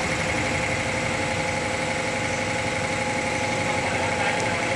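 Car-wash equipment running steadily: a constant mechanical hum with a steady high whine over it.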